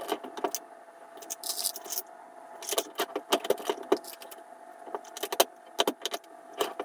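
Brass 38 Special cases clinking as a hand picks them from a plastic bin, mixed with clicks and clacks of a Dillon 550C progressive reloading press being fed and cycled. The clinks come in short clusters every second or so, over a faint steady hum.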